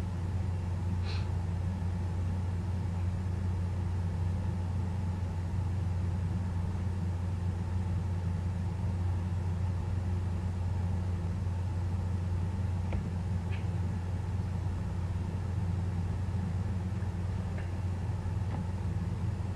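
Steady low hum from the recording equipment, with a few faint ticks: one about a second in and a handful more in the last seven seconds.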